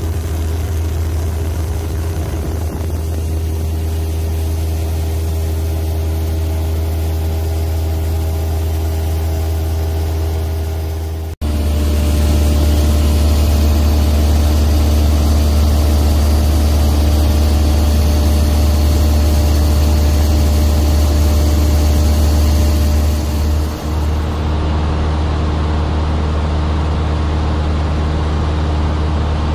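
Piston engine and propeller of a single-engine light aircraft droning steadily, heard from inside the cabin. The sound cuts out abruptly for an instant about a third of the way in.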